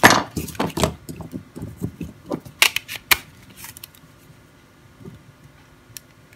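Plastic clicks and scrapes of an old Nokia mobile phone being handled and reassembled by hand: a quick run of small knocks, then a few sharp snaps of casing parts going into place about two and a half to three seconds in, then only faint occasional ticks.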